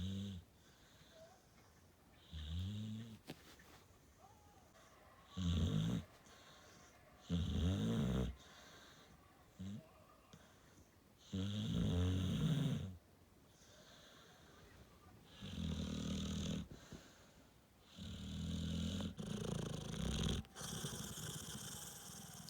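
A dog snoring loudly: a series of low-pitched snores, about one every two to four seconds.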